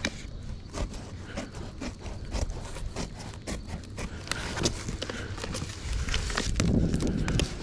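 Irregular knocking and clattering of materials being handled and sorted in a workshop, with footsteps, and a louder stretch of handling near the end.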